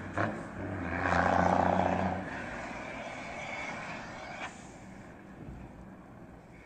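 Mercedes-Benz 1313 truck with a swapped-in 1518 diesel engine and straight exhaust pulling away under power. The engine note is strong for the first couple of seconds, then drops and fades as the truck moves off down the street.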